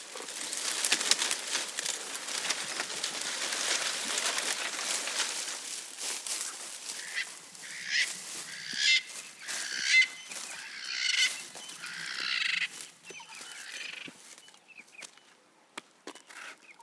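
Leaves and twigs rustling and crackling as a giraffe browses, loudest for the first several seconds, followed by a string of short harsh bursts that fade out near the end.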